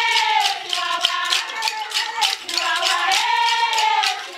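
A group of women singing together to a steady beat of hand claps and rattling percussion, about three strikes a second.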